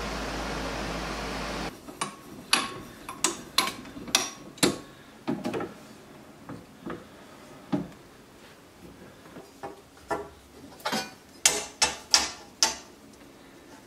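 A steady fan-like hum that cuts off after under two seconds. Then an irregular string of sharp clicks and knocks: tools and metal parts being handled at a workbench and drill press.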